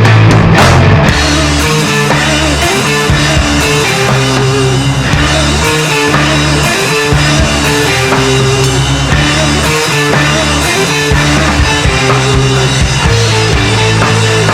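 Rock music with drum kit, bass and electric guitar, played through a saturation and spectral-clipper plug-in that adds distortion as it is driven.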